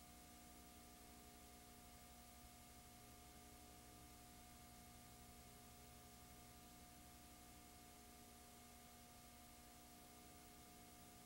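Near silence: a steady faint hiss with a low electrical hum and nothing else.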